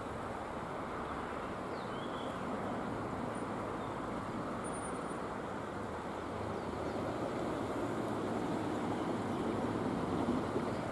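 Steady distant vehicle rumble, growing a little louder near the end, with a few faint high chirps.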